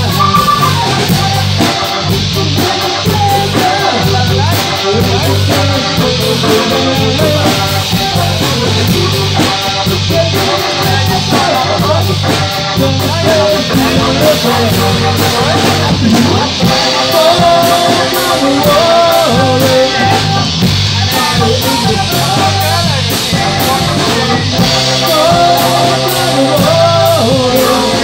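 Live rock band playing loud, with electric guitars and drums and a man singing.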